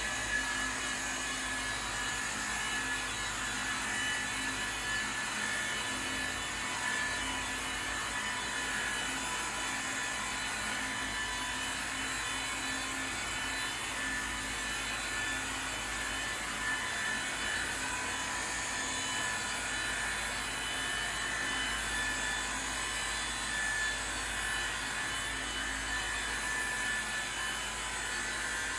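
Dual action polisher running steadily, its foam pad working a mild abrasive polish (Bar Keepers Friend) over a stainless steel body panel.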